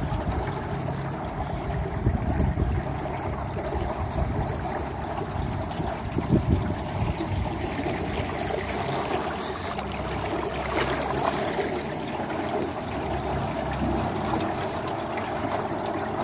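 Water trickling and lapping against the hull of a small flat-bottomed jon boat as it moves along a river.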